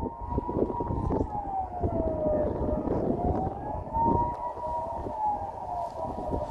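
Distant civil-defence siren sounding the Swiss general alarm: a wailing tone that slowly rises and falls, about one cycle every four seconds, over a low rumbling noise.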